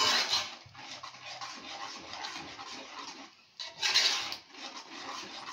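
A spoon stirring thick oat porridge and scraping against a metal pot. The rasping scrape goes on throughout, with louder strokes at the start and again about four seconds in.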